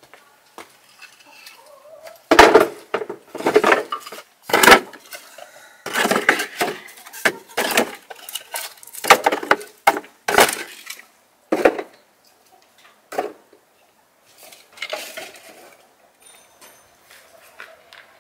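Pieces of split firewood knocking together as they are dropped into a plastic bucket: a run of sharp wooden clatters for about ten seconds, then a few quieter knocks.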